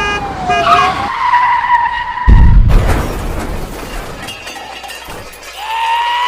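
Cartoon vehicle sound effects: a held squealing tone, then a sudden loud crash about two seconds in, and a rising squeal near the end.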